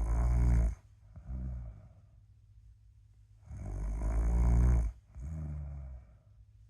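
A person snoring in sleep, in a steady cycle: a loud low snore, then a softer one just after it. The pair comes twice, a few seconds apart.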